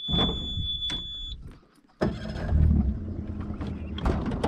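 Small boat's motor running steadily at low speed, coming in about two seconds in. Before it there is a high steady tone of about a second and a half, with a few clicks.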